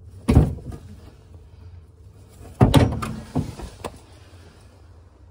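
Knocks and clicks of hands and a small tool working at the brass test point on a gas pipe inside a kitchen cupboard. There are two loud knocks, one about a third of a second in and one just under three seconds in, with lighter clicks after the second.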